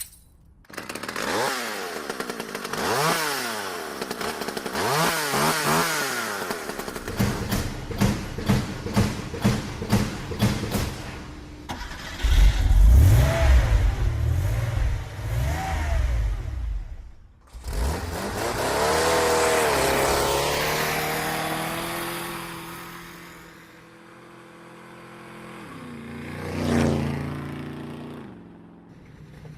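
A sequence of motor engine sounds whose pitch repeatedly rises and falls as they rev and sweep past. Midway there is a loud, low, rough stretch, and near the end one passes with a swell and fade.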